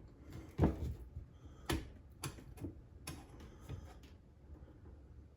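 Scattered light knocks and clicks, about five over a few seconds, from handling the plumbing fittings and cabinet under a bathroom sink.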